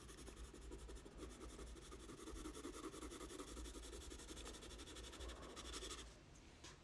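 Faint scratching of a 4B graphite pencil on sulphite drawing paper, made by quick back-and-forth cross-hatching strokes. It stops about six seconds in.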